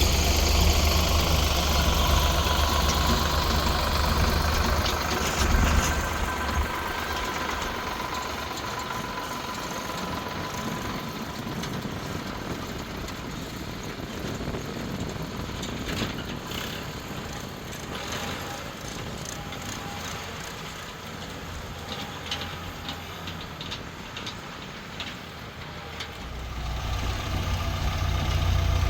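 Heavy diesel machinery engine running, loud at first, dropping to a quieter hum about six seconds in, with scattered light clicks and knocks, then swelling loud again near the end.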